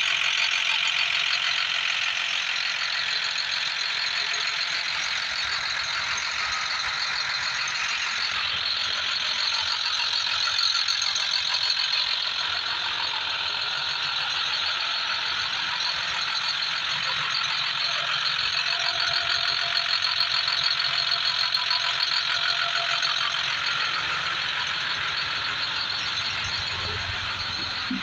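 International school bus's diesel engine idling steadily.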